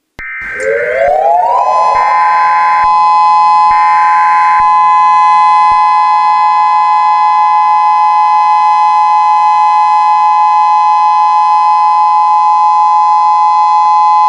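Emergency alert siren winding up in pitch over about a second, then holding a loud, steady two-note tone. Three short, higher beeps sound over the first few seconds. It is the alert signal sounded ahead of a warning message.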